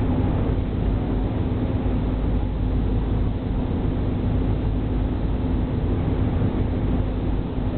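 Large car ferry's engines running with a steady low rumble and a constant hum, heard from the deck as the ship pulls away from the quay.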